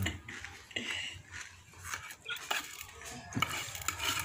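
Metal spoon scraping and tapping against a ceramic plate as beaten rice is scooped up, in a run of short scrapes and clicks.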